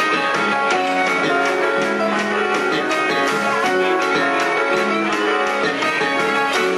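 Live band playing, with electric guitars, grand piano and drum kit, and a steady beat of drum and cymbal strokes under the notes.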